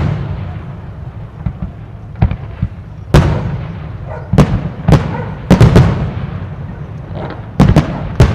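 Aerial firework shells bursting: about eight sharp booms at uneven intervals, with a low rumble between them.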